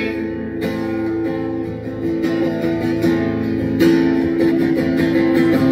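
Acoustic guitar strummed, playing chords with no voice over it.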